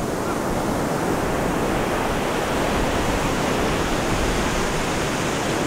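Steady, even wash of ocean surf breaking on the beach.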